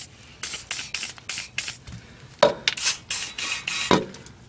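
WD-40 aerosol can sprayed in a quick series of short hissing bursts onto rusted exhaust bolts, soaking them with penetrating oil to break them loose.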